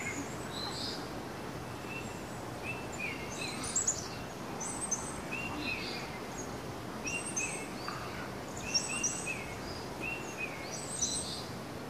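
Small birds chirping, short high calls repeating every second or two, over a steady hiss of forest ambience.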